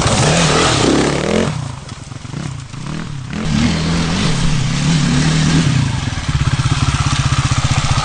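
Sherco 450 SEF-R's single-cylinder four-stroke engine revving and easing off as the dirt bike rides a trail, growing fainter for a couple of seconds as it moves away. About six seconds in it settles into a steady idle.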